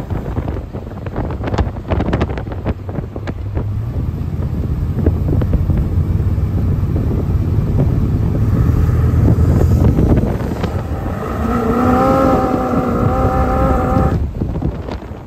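Engine of a Corvette-based Ferrari 250 Testarossa replica pulling under acceleration, heard from the open cockpit with wind buffeting the microphone. The engine grows louder over the middle seconds, and a higher droning note rises in the last few seconds before cutting off suddenly near the end.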